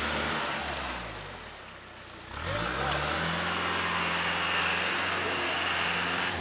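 Off-road prototype 4x4's engine revving hard as it ploughs through a stream, with water splashing. The revs ease off about a second in, then climb again about two seconds later and are held high until near the end.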